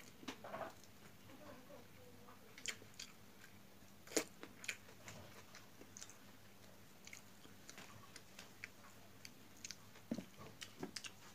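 A person chewing food close to the microphone, with scattered wet mouth clicks and smacks at irregular intervals. The sharpest click comes about four seconds in, and a quick run of clicks follows near the end.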